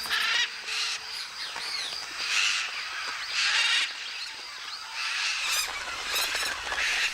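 A flock of parrots calling with harsh squawks, several loud overlapping calls every second or so.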